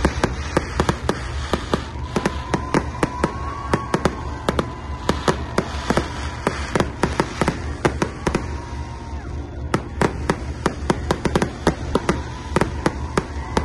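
Aerial fireworks bursting in a rapid, irregular string of sharp bangs and pops, several a second.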